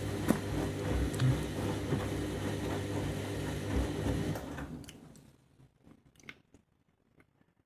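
Candy washing machine running a deep rinse: a steady motor hum as the drum turns, with water sloshing and small knocks. It stops about five seconds in, leaving only a few faint clicks.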